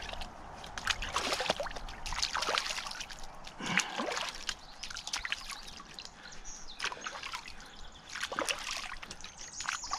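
Creek water splashing and trickling in irregular bursts.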